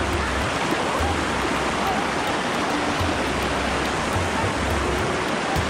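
Shallow river water rushing over rocks in small rapids: a steady, loud rush.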